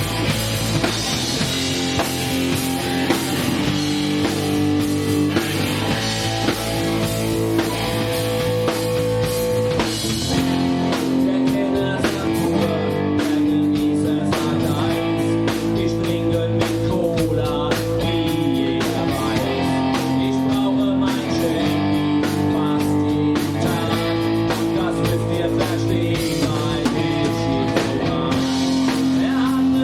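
Live rock band playing: electric guitar chords held over a steady drum kit beat.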